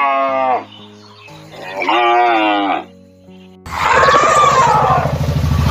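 Farm animal calls over background music: a bleat fades out, a second short bleat follows, and about two-thirds of the way through a loud, rough, low cow moo begins and carries on.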